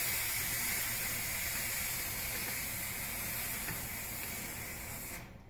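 Steam hissing out of a McCulloch MC1375 steam cleaner's boiler through its spring-loaded safety cap as the cap is held down to vent the remaining pressure. The hiss slowly weakens and stops abruptly about five seconds in, as the pressure is spent.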